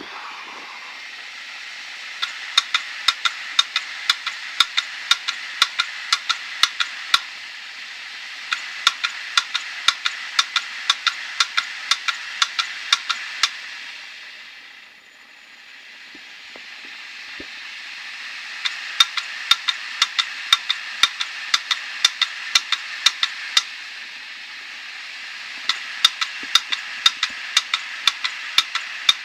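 Hard disk drive spinning with a steady whir, its heads clicking sharply over and over in runs of several seconds. About halfway through, the whir dies away and then spins back up, and the clicking resumes. The drive seems to start but does not get past this.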